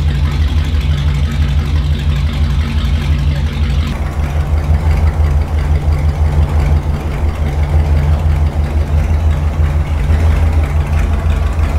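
A 241 cubic inch first-generation Hemi V8 idling steadily at about 700 RPM on an engine dyno.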